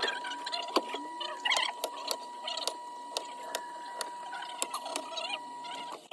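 Small repair tools clicking, tapping and scraping on an iPhone 12 Pro Max during back glass replacement, over a steady high tone that stops near the end.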